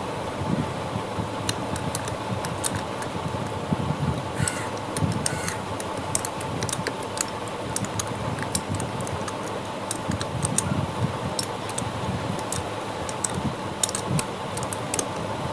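Irregular small metallic clicks and taps of a metal tool working at the lock on a housing-side bolt of a Bajaj auto rickshaw two-stroke engine's crankcase, over a steady low hum.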